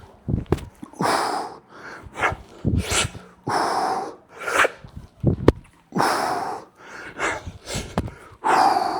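A man breathing hard mid-workout, puffing out sharp, forceful breaths roughly once a second in time with his repetitions, with a few short knocks in between.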